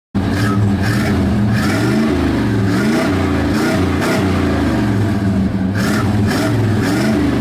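A vehicle engine running and being revved up and down repeatedly, its pitch rising and falling about once a second.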